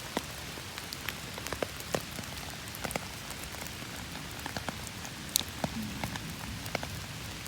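Steady rain falling, with heavy drops tapping sharply and irregularly on an umbrella overhead; one louder tap about five seconds in.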